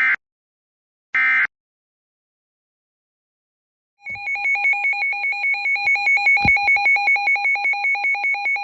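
The last of three short bursts of EAS SAME digital data tones, the end-of-message code that closes the tornado warning. After about three seconds of silence, a rapidly pulsing two-tone alert beeping starts and runs on, with a single click partway through; it announces the next warning.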